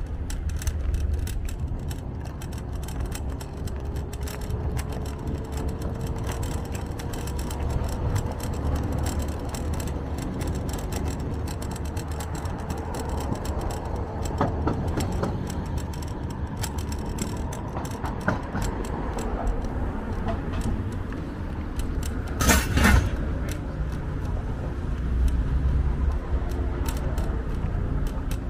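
Riding an electric scooter over pavement: a steady low rumble with constant light rattling and clicking from the scooter, a faint tone rising slowly in the first few seconds, and one short loud noise about three-quarters of the way through.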